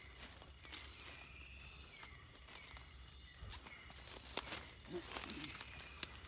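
Footsteps in rubber boots pushing through leafy forest undergrowth, with scattered rustles and a couple of sharp snaps, over a steady, high-pitched, pulsing insect call.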